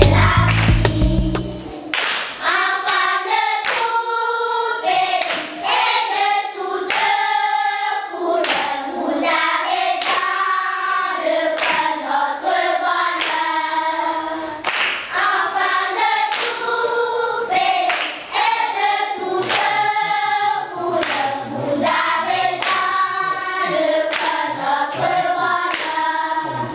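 A group of children singing a song together, over a steady beat struck by hand on a djembe-type hand drum. For the first couple of seconds, bass-heavy recorded music plays, then it cuts off.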